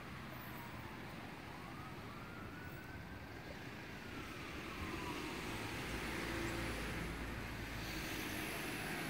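A distant siren wailing, its pitch slowly rising and falling, over steady traffic noise; in the second half a vehicle passes closer with a low engine rumble that swells and then eases.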